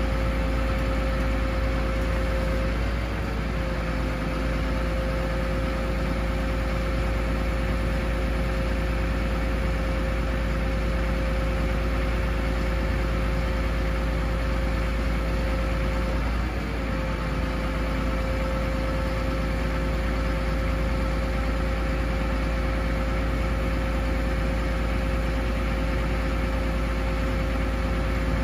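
Cummins ISB 6.7L turbo diesel running steadily, driving the hydraulic pump that powers the Altec aerial boom as it moves. A deep drone with a steady high tone over it; the tone wavers briefly about three seconds in and again about sixteen seconds in.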